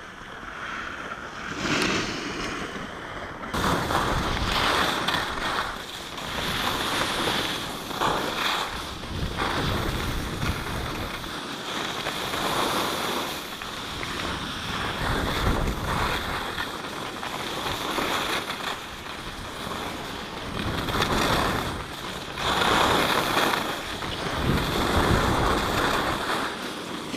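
Skis scraping and hissing over packed snow during a downhill run, with wind buffeting the camera microphone. Quieter for the first few seconds, then louder, swelling and fading every couple of seconds.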